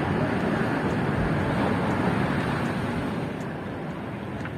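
Steady outdoor background noise, an even rush with a low rumble, easing slightly after about three seconds.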